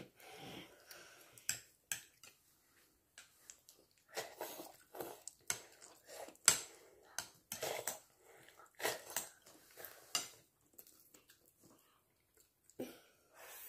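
Chewing and biting: a person eating chicken adobo by hand, biting meat off a chicken piece, in irregular short bursts with a pause of about two seconds near the end.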